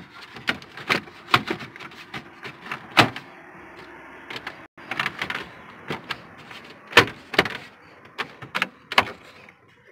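Plastic dash trim bezel around the radio and climate controls of a 2007 Ford F-150 being pressed and snapped back into place by hand: a dozen or so sharp, irregular clicks and knocks, the loudest about 3 and 7 seconds in.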